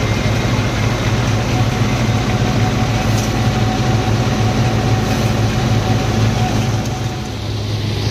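Punni multi-crop thresher running, driven by its tractor: a loud, steady mechanical drone with a low hum, dropping slightly about seven seconds in.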